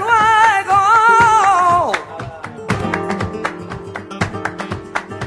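Background music: a flamenco-style song, with a singer holding one wavering note for about two seconds until it falls away, over strummed acoustic guitar that carries on alone in sharp strokes.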